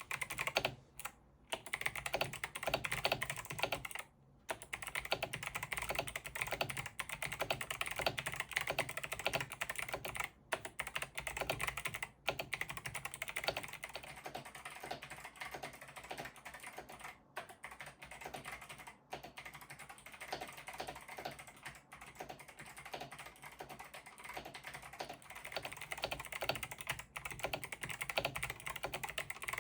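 Fast continuous typing on an 8BitDo Retro Mechanical Keyboard with clicky Kailh Box White switches: a dense, very clicky run of key clicks, with brief pauses about one and four seconds in.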